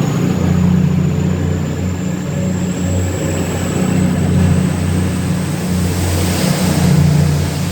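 Diesel train engine running loudly close by with a steady low drone, and a faint high whine that slowly rises in pitch.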